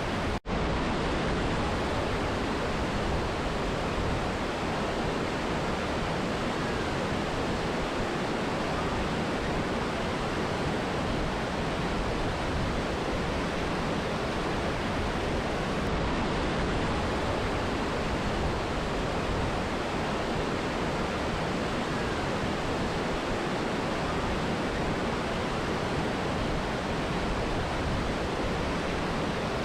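Steady rushing water of a mountain river and waterfall, an even wash of noise with a momentary dropout about half a second in.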